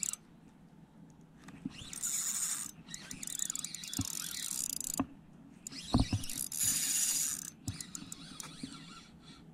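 Ultralight spinning reel being cranked in spurts during a lure retrieve, its gears whirring, with a few light clicks.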